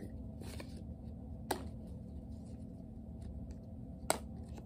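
Baseball cards being handled and flipped through by hand: light clicks of card against card, with two sharper snaps about a second and a half in and about four seconds in.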